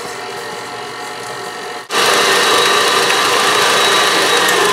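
KitchenAid stand mixer motor running steadily as its flat beater works a cream cheese filling at low speed. About two seconds in the sound dips for an instant, then comes back louder and higher at a faster speed setting.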